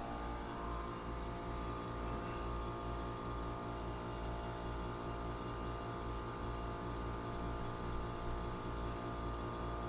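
Steady low electrical hum with a faint buzz.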